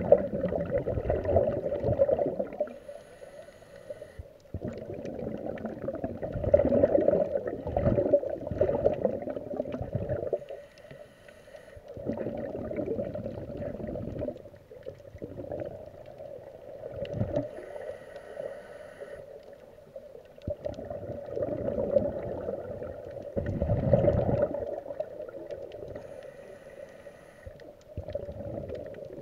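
Scuba diver breathing through a regulator underwater: long stretches of bubbling exhalation alternating with a short hissing inhale through the regulator, about four breaths in all.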